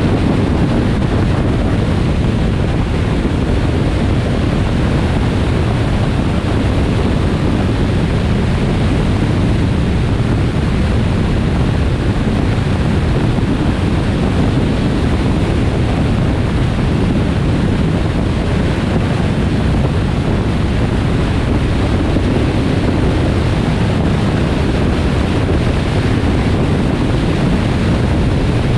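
Steady road and wind noise from a car driving along a highway, with wind rushing over the microphone.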